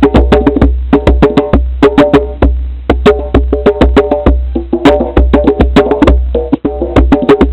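Live percussion played in a fast, steady rhythm: rapid sharp strikes, each ringing at one of a few set pitches, over a heavy, distorted low rumble.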